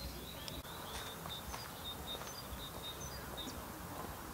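A small bird singing a quick run of short, high chirps for about three seconds, over faint outdoor background noise.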